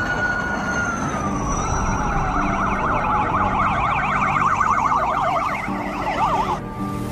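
Police convoy sirens: a steady siren tone slides down in pitch, then several fast yelping sirens warble over one another and cut off shortly before the end.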